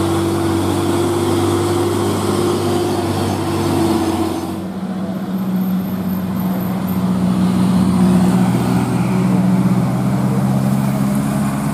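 Hino truck diesel engines pulling up a steep climb, a steady low drone. The engine sound changes abruptly about four and a half seconds in.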